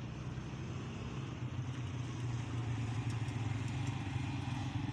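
Road traffic noise: a steady low hum of passing vehicles, a motorcycle among them, growing a little louder toward the end.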